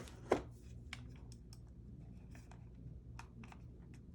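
Scattered light clicks and taps of a wireless mouse and its plastic packaging being handled, with one sharper click about a third of a second in, over a faint steady low hum.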